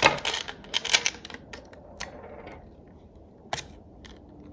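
Quick clicks and light rattling from small phone-repair parts and tools being handled, dense for about the first second, then a few single clicks.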